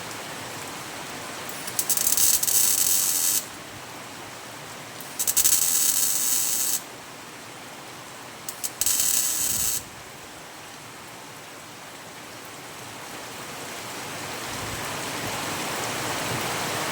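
MIG welder laying three short tack welds into a steel repair panel through plug-weld holes, each a crackling burst of one to two seconds with gaps of a couple of seconds between. Steady rain hiss runs underneath.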